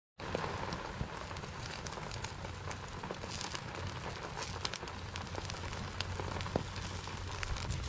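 Steady rain falling, with a wood campfire crackling in scattered sharp pops.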